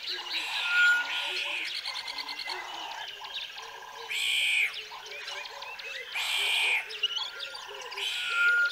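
Rainbow lorikeet chattering, with three loud, harsh screeches: about four seconds in, about six and a half seconds in, and near the end.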